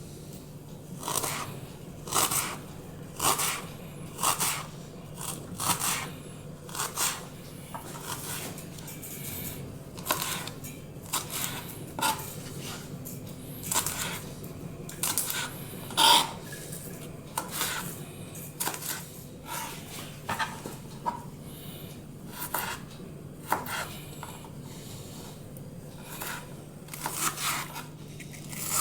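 Kitchen work: irregular knocks and scrapes of utensils, roughly one a second and sometimes in quick pairs, over a faint steady low hum.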